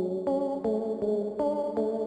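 Intro music: a keyboard melody of evenly paced notes, about two or three a second.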